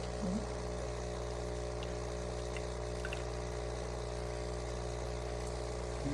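Small countertop kitchen appliance running with a steady electric hum, which the owner finds is not heating: the liquid inside stays cold.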